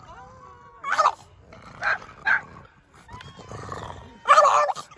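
French bulldog barking: four short barks, the last and loudest near the end.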